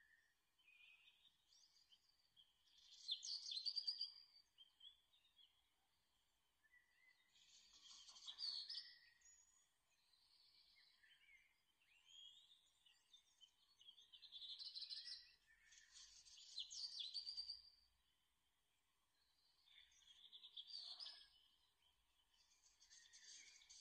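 Thin origami paper rustling and crinkling by hand as it is folded and creased, in short crackly bursts every few seconds with quiet gaps between.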